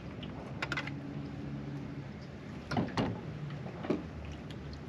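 Knocks and clatter of fishing gear being handled in a boat, a few sharp clicks and clunks over a low steady hum.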